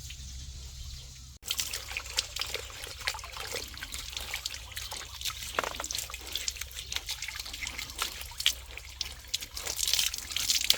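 Water splashing and trickling as a dog is bathed, a dense run of small irregular splashes and drips. It starts abruptly about a second and a half in.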